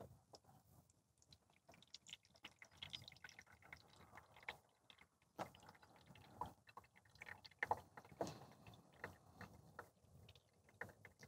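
Near silence, with faint scattered clicks and creaks from an AeroPress plunger being pressed slowly down through the brew chamber into a mug.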